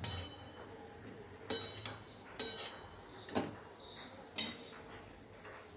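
Steel wire-mesh skimmer and spatula clinking and knocking against a steel kadai while fried shakkarpare are scooped out of hot oil: about half a dozen sharp metal clinks at irregular intervals, over a faint hiss of frying oil.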